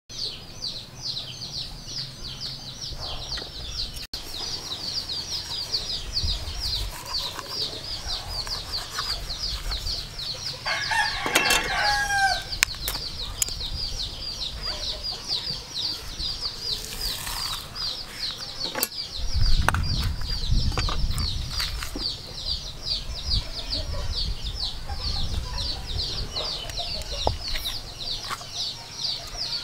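A high, fast chirp pulsing several times a second runs on steadily, and a rooster crows once about eleven seconds in. A few sharp clicks and a low rumble come around twenty seconds in.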